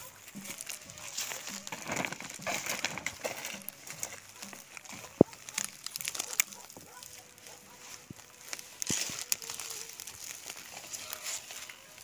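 Rustling of an armful of freshly pulled weeds and crinkling plastic sacks as they are handled, with scattered small snaps and one sharp click about five seconds in. Later, quieter rustling of footsteps through grass.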